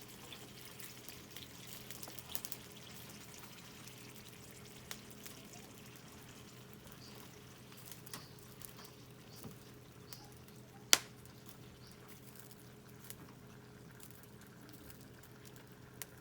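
Scrap SPF lumber campfire crackling, with scattered small snaps and one sharp pop about eleven seconds in.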